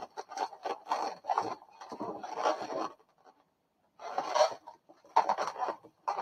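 Inflated latex modelling balloons rubbing and squeaking against each other as they are handled and woven together, in irregular bursts with a brief pause about three seconds in.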